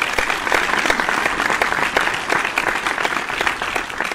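Audience applause: many hands clapping in a dense, steady patter.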